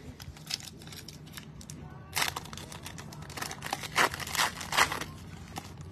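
A foil trading-card pack wrapper is torn open and crinkled by hand. It makes a run of sharp crackles and rips, loudest and densest from about two seconds in.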